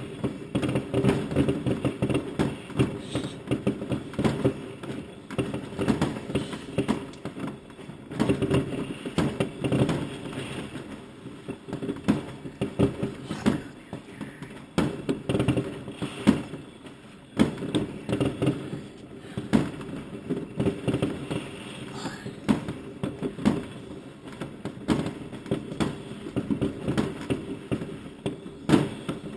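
Fireworks going off without a break: dozens of irregular bangs, cracks and crackles from bursting rockets, some close and sharp, others farther off and duller.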